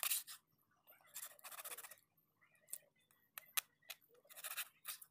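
Knife cutting raw fish steaks into pieces on a wooden chopping board: short scraping strokes through the flesh, with a few sharp taps of the blade against the board in the middle.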